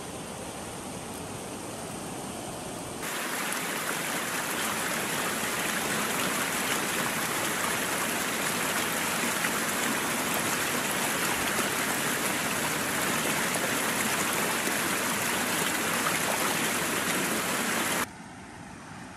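Steady rushing hiss that jumps louder and brighter about three seconds in, holds evenly, then drops abruptly near the end.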